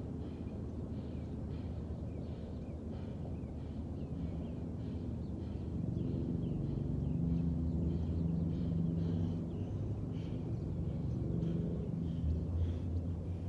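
Outdoor background of low traffic rumble, with a vehicle engine growing louder from about halfway through and easing off near the end. A bird chirps repeatedly over it, about twice a second.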